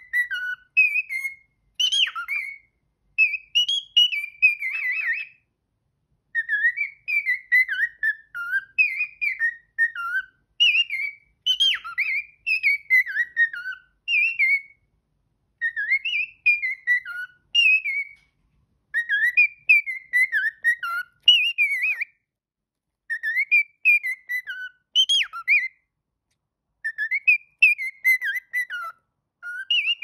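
Cockatiel whistling its warbling song: short phrases of quick rising and falling whistled notes, one after another with brief pauses between them.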